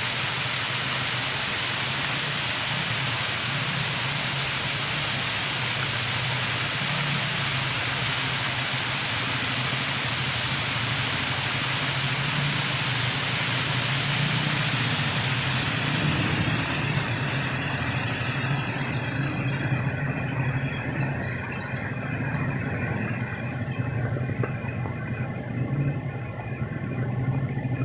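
Heavy rain pouring down, a steady rushing hiss over a low rumble. A little over halfway through the high hiss falls away, leaving mostly the low rumble.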